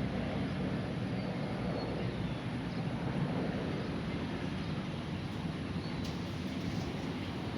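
Steady rumble of road traffic passing, with a few faint, short bird chirps above it.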